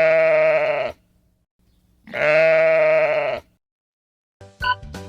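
A sheep bleating twice, two long wavering baas of over a second each. A jingly tune with regular plinking notes begins near the end.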